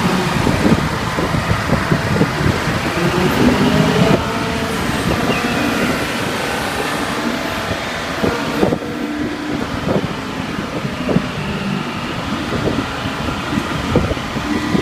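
Badger 460 Hydro-Scopic excavator running under working load, its engine note rising and falling with scattered clanks and knocks.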